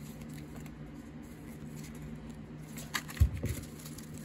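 A stack of 1990s basketball trading cards being handled: quiet flicking as the cards are leafed through, then a few short knocks about three seconds in, the loudest a low thump as the stack is squared in the hand. A faint steady hum sits underneath.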